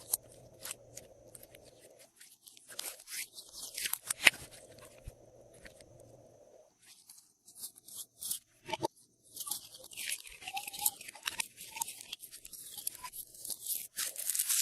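Glossy slime being squished and worked by hand with add-ins mixed through it: crunchy crackling and sticky clicks in bursts, a cluster about two to four seconds in and a longer, denser run from about nine seconds on.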